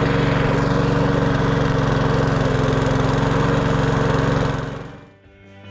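Small petrol lawn mower engine running steadily at a constant pitch, fading out near the end.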